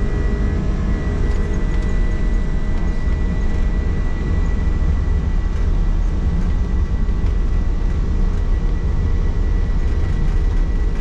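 Steady roar of an Airbus A310 under takeoff or climb power, heard inside the cockpit: a deep rumble of engines and airflow with a thin steady whine on top.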